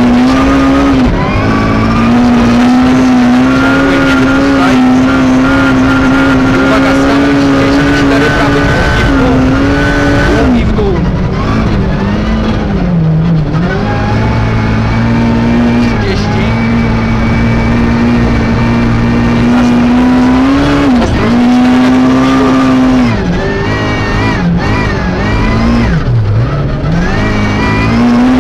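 Suzuki Ignis S1600 rally car's 1.6-litre four-cylinder engine, heard from inside the cabin, held at high revs at speed. The revs drop and climb back once about ten seconds in, and several times in quick succession in the last third, as the driver lifts off and changes gear.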